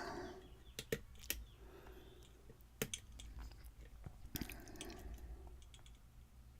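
Faint, scattered clicks and taps of a lock pick working the pins inside a challenge lock under tension, with a few soft handling rustles.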